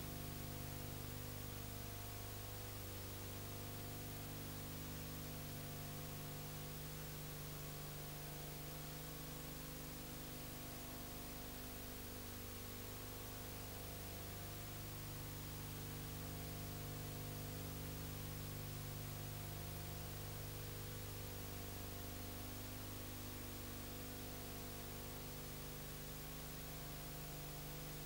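Steady hiss with a low electrical hum and no other sound: the noise floor of a silent film's video transfer.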